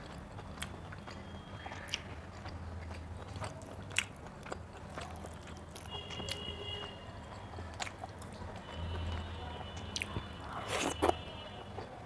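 Close-up chewing and biting of food, with scattered wet mouth clicks and smacks and a louder cluster of them near the end.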